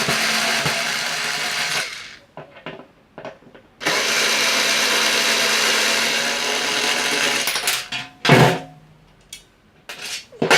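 Small handheld electric power tool running steadily in two runs, the first about 2 s long at the start and the second about 4 s long from about 4 s in, with a short loud knock or clatter about 8 s in.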